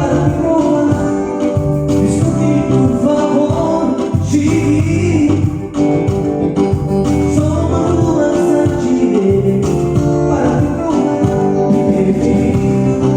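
Music with a singing voice over sustained chords and a steady bass line.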